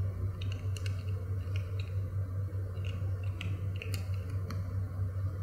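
Kitten chewing treats, with irregular small crunchy clicks over a steady low hum.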